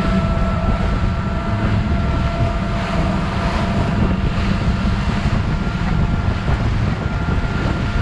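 Wind buffeting the microphone over the steady drone of a motor, with a constant whine held throughout.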